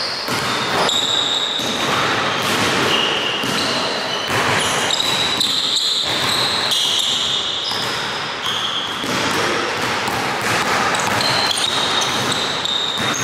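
Basketball being dribbled on a hardwood gym floor, with sneakers squeaking against the boards in short high squeals as players cut and change direction.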